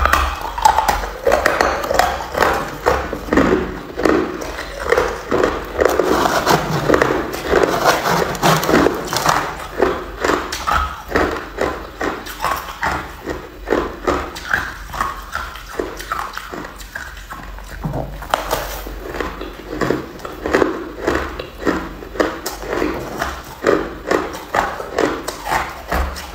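Ice being bitten and chewed: a steady run of crisp crunches, roughly two a second.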